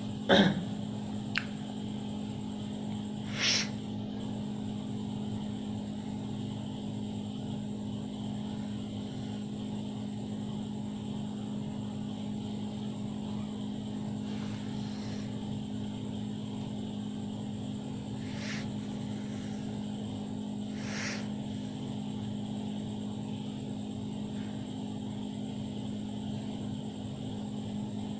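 A steady low machine-like hum, with a loud short sound sliding down in pitch right at the start, a click just after, and a few brief hissy noises spread through the rest.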